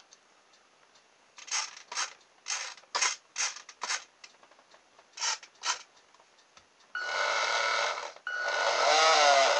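A run of short buzzes, then the small electric drive motor of an RC boat conversion run up twice by its speed controller, about seven and eight seconds in, each run with a steady whine and a pitch that rises and falls.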